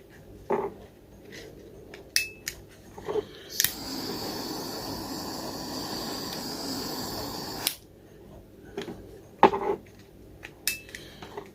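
Heat gun blowing steadily for about four seconds, shrinking heat-shrink tubing over a soldered wire connector, then switching off abruptly. Sharp knocks and clicks of wires and tools being handled come before and after it, the loudest knock about two seconds after the gun stops.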